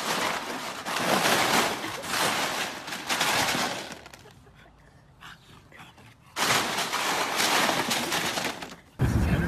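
Ice cubes crunching and clattering as bulldogs step and paw through a plastic paddling pool full of ice. The sound comes in two spells, with a lull of about two seconds in the middle.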